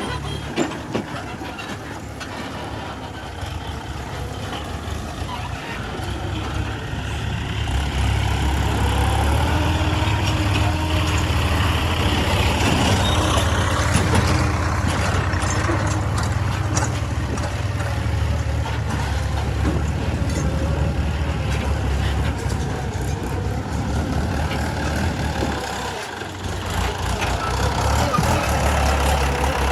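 Heavy diesel engine running under load, its sound growing louder about eight seconds in and dropping briefly near the end before picking up again.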